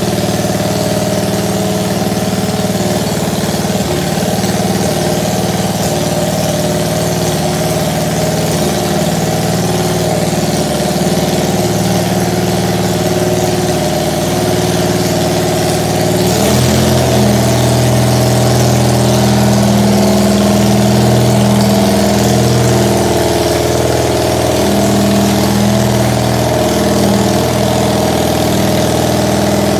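Engine of a custom Cub Cadet 782-based crawler tractor running steadily at low speed as the machine moves. About halfway through the engine note changes and it runs a little louder.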